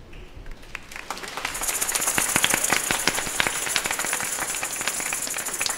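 Congregation applauding, many hands clapping. It swells in about a second in and then holds steady.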